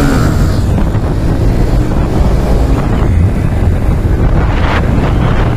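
Heavy wind buffeting the microphone of a motorcycle accelerating hard, with the TVS Victor's 110cc single-cylinder engine running under the rush.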